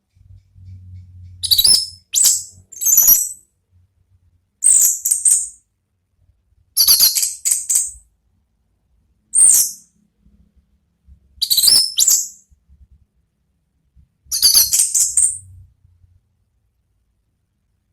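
Orange-headed thrush (anis merah) singing its loud, clear 'ngeplong' song in about eight short, high-pitched phrases, with pauses of a second or two between them.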